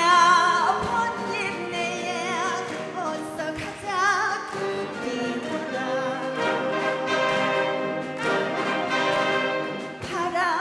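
A woman singing through a microphone, accompanied by a wind band of saxophones and brass, with a wide vibrato on held notes.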